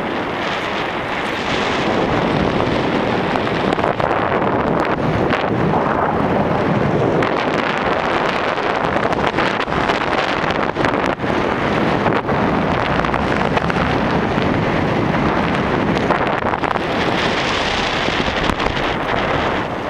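Steady wind rushing over the microphone of a camera held in paragliding flight, with a few brief dips in the rush.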